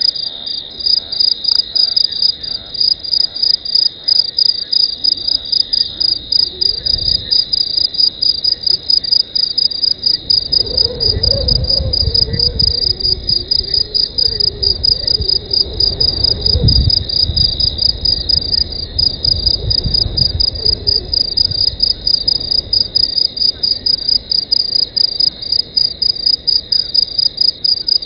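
An insect, likely a cricket, calling in a fast, even string of high-pitched chirps, several a second, without a break. Midway through, a low rumble with a wavering hum rises under it for several seconds and then fades.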